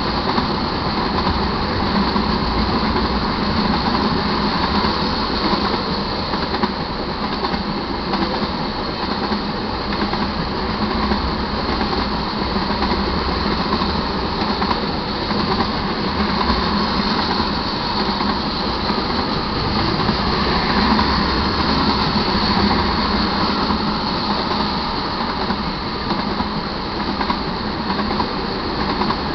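Crude oil tank cars of a freight train rolling past, a steady noise of steel wheels on the rails.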